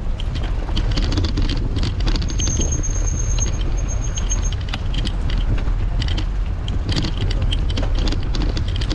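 Wind buffeting a bicycle-mounted action camera's microphone while riding, with the bike rattling over stone paving in frequent short clicks. A faint thin high whine comes in about two seconds in and fades out a couple of seconds later.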